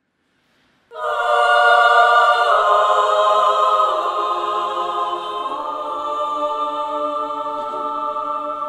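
Women's choir singing a cappella, coming in about a second in on full, sustained chords that grow a little softer after a few seconds.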